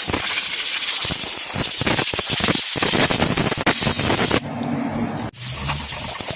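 A spray hissing in long, loud blasts as the brake assembly is cleaned, with a short break about four and a half seconds in.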